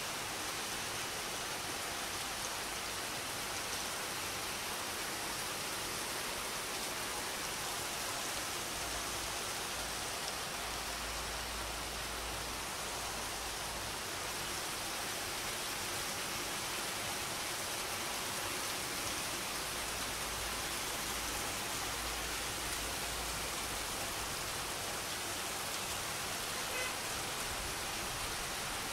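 Steady rain falling, an even hiss that does not let up, with a low rumble now and then.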